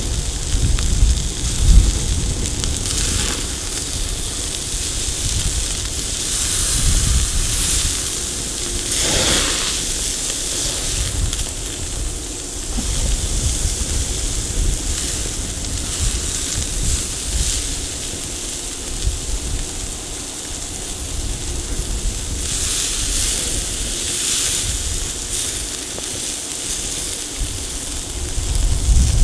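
Ribeye steaks sizzling on a cast iron grill plate over a burning charcoal fire, a continuous hiss that swells louder twice, over a low rumble.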